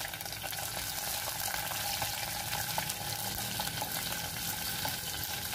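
Sliced onion sizzling and crackling steadily in hot oil in a small nonstick frying pan as it is sautéed.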